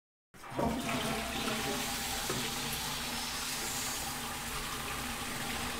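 Toilet flushing: a rush of water that starts suddenly and runs on at a steady level.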